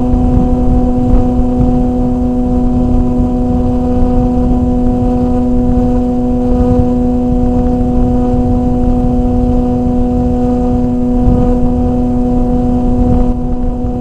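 FPV drone in flight, heard through its onboard camera: a steady hum that holds one pitch, over rough, low wind buffeting on the microphone.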